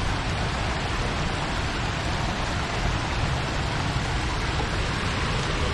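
Small mountain brook running over rocks, a steady rushing noise.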